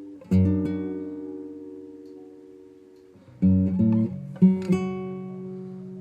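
Background music of slow, plucked acoustic guitar chords. One chord rings out and fades for about three seconds, then a few more are plucked in quick succession around the middle and left to ring.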